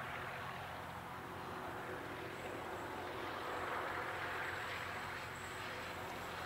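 Faint, steady rumble of a diesel freight locomotive approaching from far off, heard against outdoor hiss. It swells slightly partway through.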